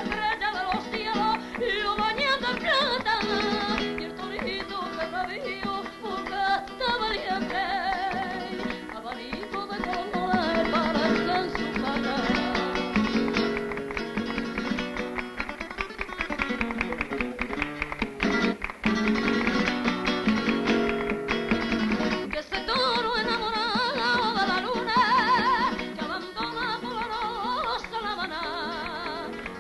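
Flamenco song: a woman's voice singing a wavering, ornamented melody over strummed and plucked acoustic guitars.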